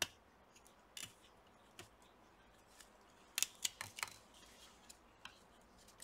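Faint, scattered clicks and light plastic rattles from a laptop cooling fan being worked loose and lifted out of the chassis by hand, with a quick cluster of clicks a little past halfway.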